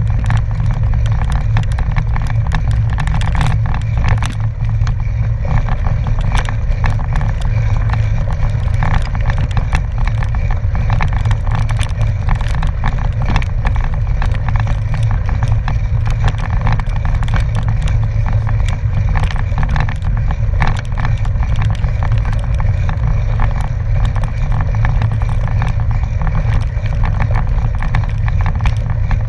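A gravel bicycle rolling over a packed gravel road: a loud, steady low rumble of tyres and wind on a bike-mounted camera's microphone, with constant small clicks and rattles from the gravel and the bike.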